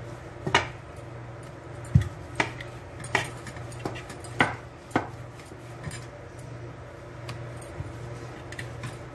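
Wooden rolling pin rolling a slice of bread flat on a hard board, knocking and clacking against the board about six times in the first five seconds, with a duller thump about two seconds in, then quieter rolling. A steady low hum runs underneath.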